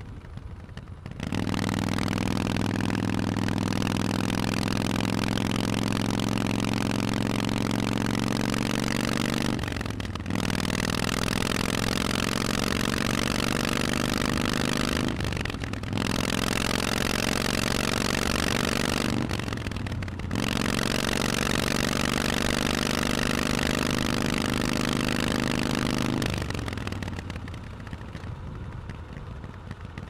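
Harley-Davidson Forty-Eight's air-cooled V-twin through Vance & Hines exhaust pipes, pulling away about a second in and accelerating through the gears. The pitch climbs steadily in each gear, broken by three brief dips at the upshifts. Near the end the throttle closes and the engine falls back.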